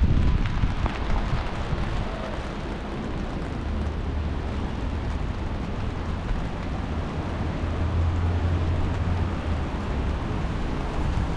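Steady city street noise: a low traffic rumble under an even hiss, the rumble swelling for a couple of seconds about eight seconds in.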